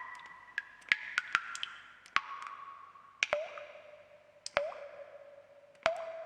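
Water drops falling into water one at a time at an uneven pace, about seven in a few seconds, each a sharp plink with a brief pitch glide and a clear tone that rings on until the next drop.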